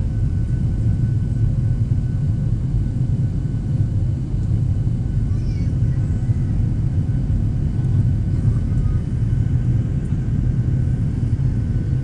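Cabin noise of a Boeing 737-700 climbing after takeoff: its CFM56-7B engines and the airflow make a steady low rumble, with faint steady whining tones above it.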